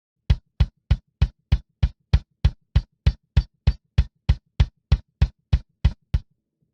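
Soloed, live-recorded metal kick drum track playing back after gating: a steady run of clean, punchy kick hits about three a second, with dead silence between them, stopping near the end.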